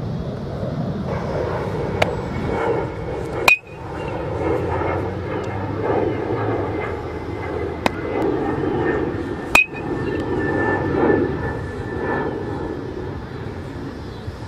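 Two sharp metallic pings of an aluminum bat hitting a baseball, about three and a half seconds in and again near ten seconds, over steady background noise.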